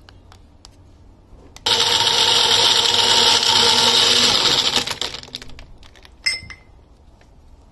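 Electric countertop blender switched on for about three seconds, blending lassi with ice cubes: it starts abruptly, runs at a steady speed, then winds down and stops. A sharp clack follows as the jar is lifted off the motor base.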